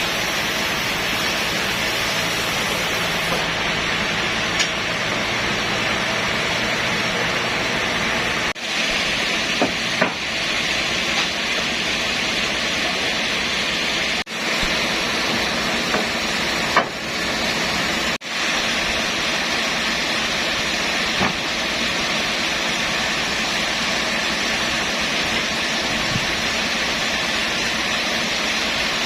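Sawmill machinery running: a steady noise, broken by a few very short dropouts.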